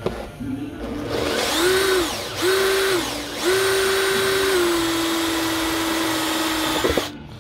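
Cordless drill with a hole-cutter bit boring a parking-sensor hole through a plastic car bumper. The motor whines up in three short runs, then runs steadily for about three and a half seconds, its pitch settling a little lower partway through, and stops suddenly near the end.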